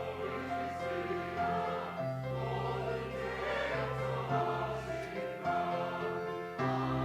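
Church choir singing a sacred anthem in sustained, held chords that change every couple of seconds.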